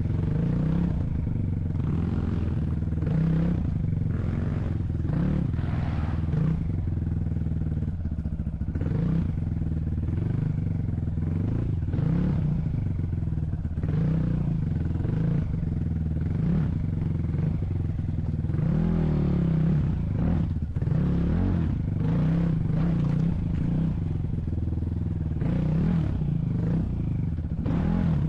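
A vehicle's engine running with revs rising and falling, along with clattering and rattling of the vehicle.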